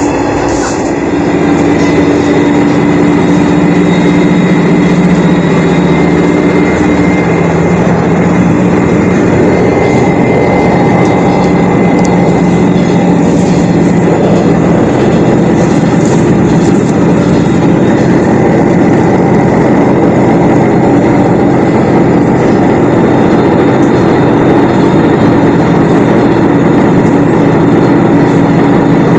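Diesel engine of a Shigaraki Kohgen Railway SKR401 railcar running under way, heard from inside the car: a loud, steady drone with a humming engine note, growing louder about a second in and then holding.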